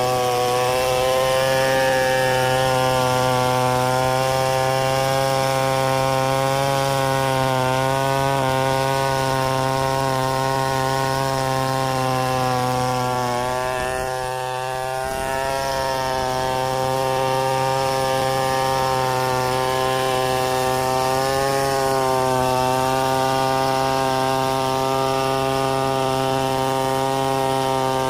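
Two-stroke chainsaw running at high speed under load, cutting wood in one long continuous cut. Its pitch wavers slightly and sags briefly about halfway through.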